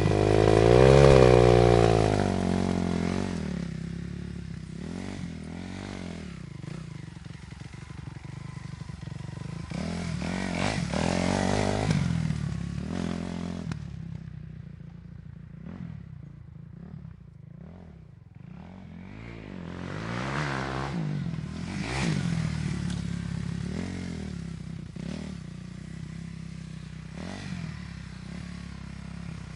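Motorcycle engine revving, its pitch rising and falling in several swells, loudest in the first few seconds.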